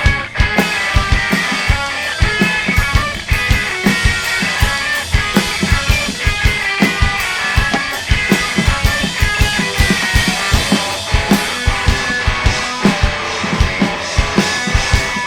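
Live rock band playing an instrumental passage: a drum kit pounding out a fast, steady beat of kick and snare hits under electric guitar.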